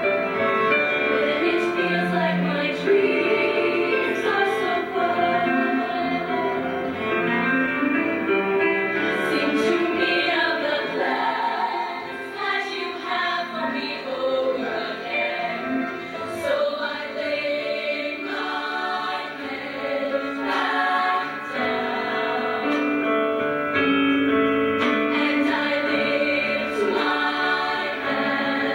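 Female show choir singing in parts, a little softer through the middle.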